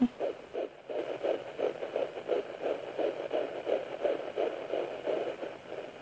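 Fetal heartbeat at about nine and a half weeks, picked up by a Sonoline B handheld fetal Doppler and played through its speaker: a fast galloping pulse of just under three beats a second, around 160 to 165 beats per minute.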